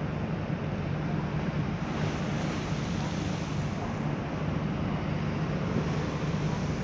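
Large car ferry Superferry's engines giving a steady low drone as it arrives in port, mixed with water wash and wind buffeting the microphone.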